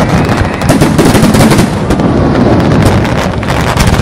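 Fireworks display: a dense, continuous barrage of shells bursting, with many rapid overlapping bangs and crackles over a steady low rumble.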